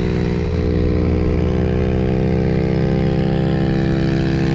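Nissan S14's turbocharged SR20DET inline-four engine running steadily while driving, its pitch creeping up slowly over the first few seconds and then holding.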